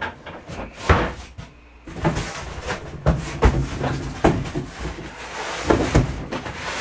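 Items and packaging being handled and set down: a sharp thump about a second in, then rustling with a run of short knocks and thumps.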